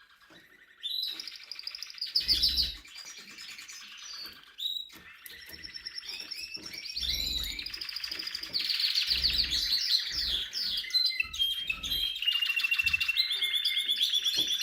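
Spanish Timbrado canary singing on and on in fast rolling trills and rapid repeated notes, after a brief pause at the start. Several dull low bumps sound underneath.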